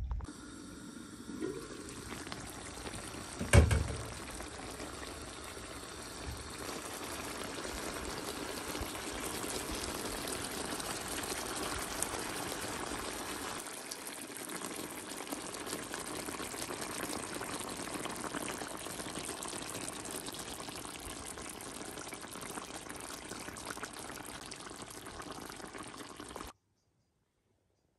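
Chicken stew in coconut milk simmering in a pan, a steady liquid hiss, with a single sharp knock about three and a half seconds in. The sound cuts off abruptly near the end.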